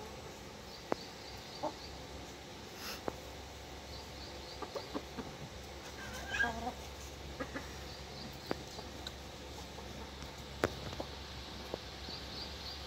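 Free-range chickens foraging: one short clucking call about six seconds in, and scattered sharp ticks of pecking and scratching in dry dirt. Faint high chirps come in quick runs of four or five, several times.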